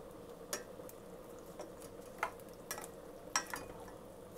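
A black plastic spoon stirring chicken wings in water in a stainless steel pot, knocking against the pot several times at irregular intervals, over a steady low hum.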